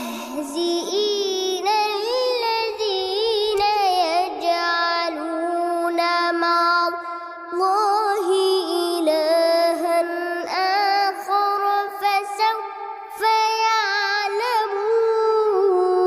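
A young boy's voice reciting the Quran in a melodic, ornamented chant, stretching single syllables into long wavering notes. The phrases are broken by short pauses about halfway through and again a few seconds later.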